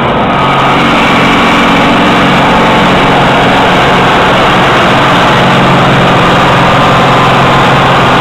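Massey Ferguson 1155 tractor's Perkins V8 diesel engine running flat out under full load, pulling a weight-transfer sled and belching black smoke. It is very loud, with a steady pitch throughout.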